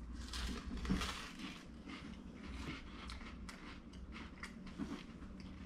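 Two people biting into and chewing smoked salmon on crackers, with a run of irregular crunches.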